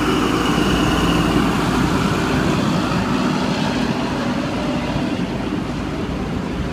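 XPT diesel power car pulling out and passing close by, its engine running with a steady low drone that eases slowly as the carriages roll past behind it.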